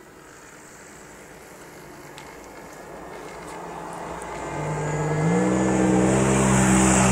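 Radio-controlled model airplane's engine, faint at first and growing steadily louder as the plane comes nearer, its pitch stepping up slightly about five seconds in and then holding.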